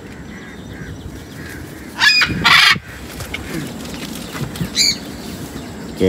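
Macaws squawking in flight: a loud harsh screech about two seconds in, followed at once by a rougher, noisier one, then a shorter call near the end.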